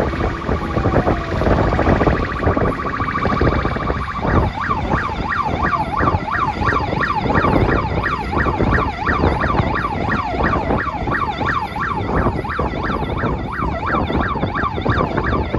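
Electronic vehicle siren. It switches about four seconds in from a slower tone to a fast yelp, rising and falling about three times a second, over the steady road rumble of the car.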